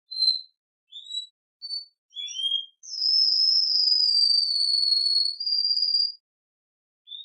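Domestic canary singing: a few short, high chirps, then one long, high whistled note held for about three seconds that sinks slightly in pitch and lifts again just before it stops.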